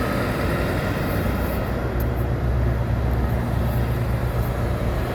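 Heavy construction machine's diesel engine idling steadily, a constant low hum.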